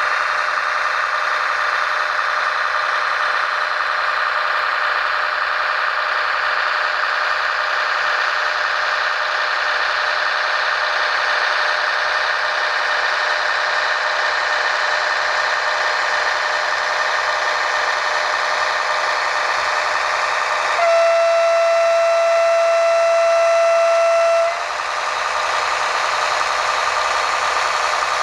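Märklin HO model of a DB class 648.2 diesel railcar running along the track, its sound decoder playing a steady diesel engine sound over the motor and wheel noise. About three quarters of the way through, the model sounds its horn once: a steady single-tone blast of about three and a half seconds.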